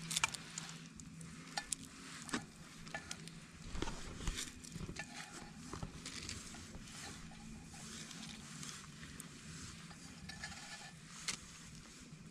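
A spoon scraping and tapping inside a small metal cooking pot as cooked noodles and egg stuck to the bottom are scooped out, a run of faint, irregular scrapes and clinks.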